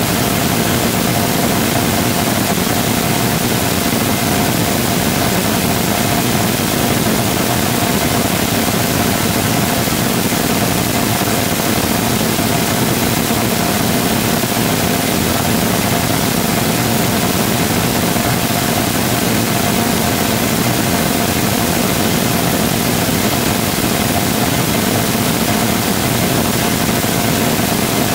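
Full-scale 3D-printed rotating detonation rocket engine combustor firing steadily during a hot-fire test: a loud, unbroken rushing noise with a steady tone running through it.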